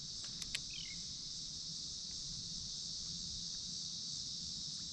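A steady, high-pitched chorus of insects droning without a break, with a couple of faint ticks about half a second in and a brief bird chirp about a second in.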